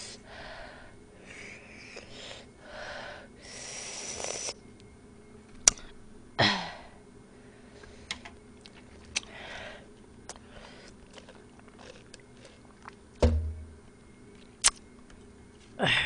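Close-miked eating of very spicy fried noodles: soft chewing and breathy sniffing, sharp clicks of chopsticks against a steel tray, and one low thump about 13 seconds in.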